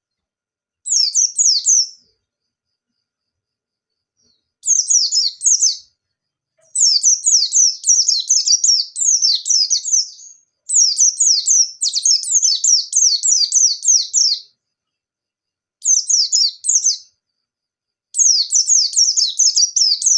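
A white-eye (pleci) in full, fast song: six rapid bursts of high, quickly falling chirps, each lasting from about one to three and a half seconds, with short silent pauses between them.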